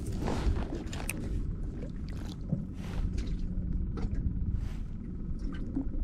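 Wind rumbling on the microphone and small waves lapping against a small aluminum boat's hull, with a few short light clicks scattered through.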